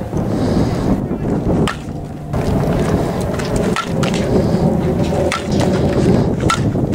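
Wind buffeting the camera microphone in a steady low rumble, with a few sharp cracks of a softball bat hitting balls, one clearly a bit under 2 seconds in and another near the end.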